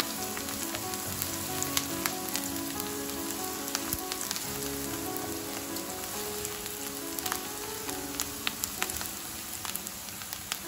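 Diced onions sizzling in oil in a frying pan, a steady hiss with scattered small pops, under quiet background music.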